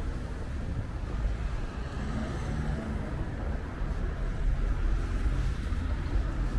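City street noise: a steady low rumble of traffic, with wind buffeting the microphone.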